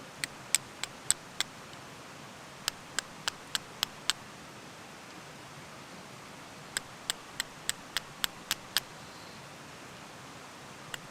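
A stone struck against a carbon-steel fire striker in three quick runs of sharp clicks, about three strikes a second, as it is tried as the flint in flint and steel. The stone is too soft: it breaks instead of shaving off the steel, and makes hardly any sparks.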